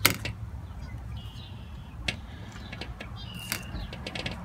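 Small clicks and handling noises from hands working on a quadcopter's wiring while taping up an LC filter, with a sharp click at the start. Two brief high squeaks come through, about a second in and again past three seconds.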